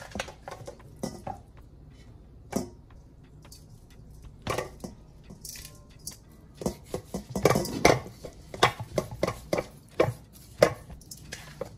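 Whole salmon being handled and seasoned in a stainless steel mixing bowl: irregular knocks, scrapes and clatters of the fish and hands against the metal bowl, sparse at first and coming thick and fast in the second half.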